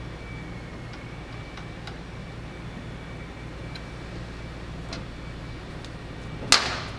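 Hand tools and a bolt working on a motorcycle's metal frame: a few faint, scattered light ticks over a steady low shop hum, then one sharp metallic clank near the end followed by a couple of small clicks.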